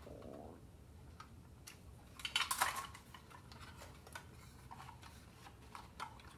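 Handling of the toy robot's painted metal body and hinged panel: scattered light clicks and taps, with a short burst of clattering metal about two seconds in, the loudest sound.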